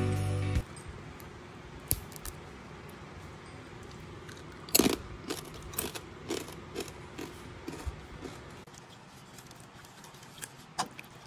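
Quiet kitchen handling: scattered light taps, clicks and small crunches, with one louder knock about five seconds in.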